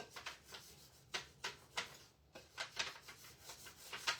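A tool rubbing a rub-on transfer onto a wooden cutting board, pressing the transfer onto the wood. Short scratchy strokes come about three a second, unevenly.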